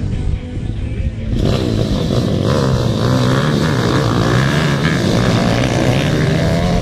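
Several small dirt bikes revving hard together as they launch from a start line. The engines come in sharply about a second and a half in, then run high as the pack accelerates away.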